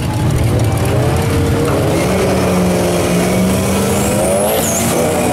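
Two drag cars, a turbocharged Nissan 240SX and an older sedan, staged at the start line with engines rumbling, then held at steady raised revs, then launching about four seconds in with the engine pitch climbing. The pitch dips briefly near the end as a gear changes, then climbs again, with a faint high whistle rising along with it.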